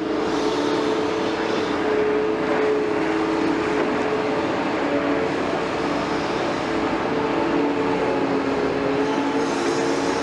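Liebherr 946 hydraulic excavator running steadily: a constant engine drone with a few steady whining tones.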